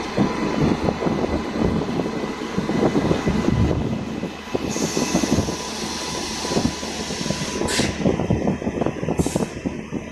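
Indian Railways electric locomotive and its coaches rolling past close by, wheels clattering irregularly over the rail joints, with a faint steady high tone. A hiss joins about five seconds in, and two short, sharp hisses come near the end.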